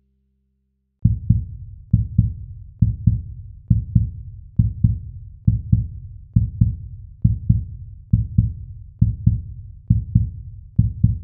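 Heartbeat sound effect: low double thumps (lub-dub) repeating a little faster than once a second, starting about a second in.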